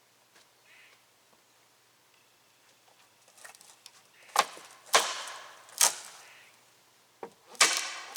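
Rotted wooden deck boards being broken apart: three sharp wooden knocks about half a second apart around the middle, then a longer cracking noise near the end.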